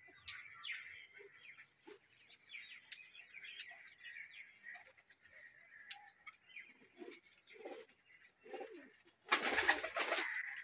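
Domestic pigeons in a wire-mesh loft cooing softly, with short high chirps in between. A little past nine seconds in, a pigeon takes off with a loud burst of wing flapping that lasts about a second.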